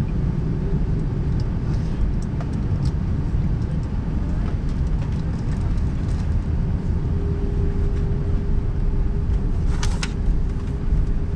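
Steady low rumble in the cabin of an Airbus A380 on the ground before takeoff. A steady hum joins about halfway through, and a couple of sharp clicks come near the end.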